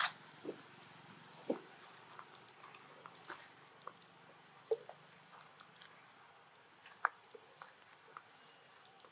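Insects trilling steadily in a high pitch, with a rapid pulsing chirp that fades out about halfway. A few short sharp clicks and taps sound through it, the loudest right at the start.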